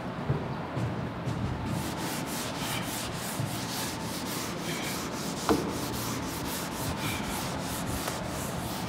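Cloth duster rubbing chalk off a chalkboard in quick, evenly repeated back-and-forth strokes, with one brief sharp knock or squeak about halfway through.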